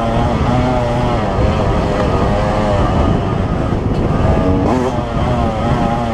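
2005 Yamaha YZ125's single-cylinder two-stroke engine running hard under throttle, its pitch rising and falling as the rider works the throttle, dropping about four seconds in and then climbing sharply.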